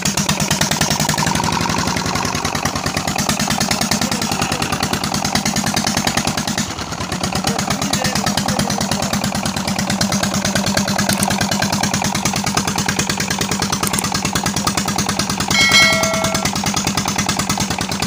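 Petter diesel engine freshly fitted with a nozzle plate, running steadily just after a hand-crank start, with an even firing beat. About two seconds before the end a short chime-like tone sounds over it.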